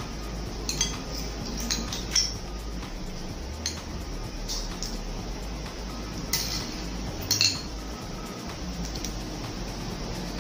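Metal fork and spoon clinking and scraping against ceramic plates, a scatter of sharp clinks with the loudest about six and seven and a half seconds in, over a steady low hum.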